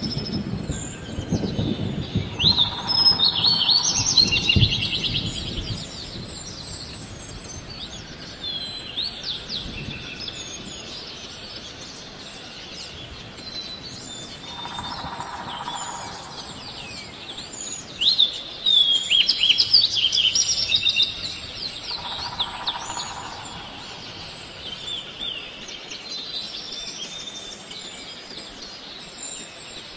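Wild birds chirping and twittering in the trees in repeated bursts of quick high calls, over a low outdoor background, with a low rumble in the first few seconds.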